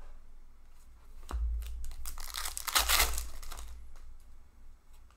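Hockey trading cards handled by hand: a crinkly rustle that swells for a second or two around the middle, with a few light clicks and bumps.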